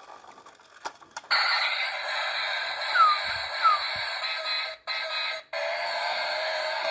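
Background music coming in after a second of a few faint clicks, with two short falling chirps partway through and two brief dropouts.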